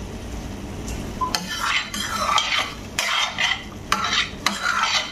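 Metal spoon stirring chicken in tomato gravy in a stainless steel frying pan, with repeated scraping strokes and sharp clinks of metal on metal, starting about a second in.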